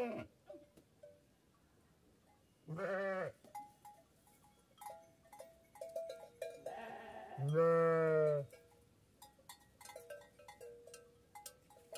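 Kangal sheep bleating: a short bleat about three seconds in and a louder, longer one of about a second near eight seconds. Small bells clink repeatedly through the second half.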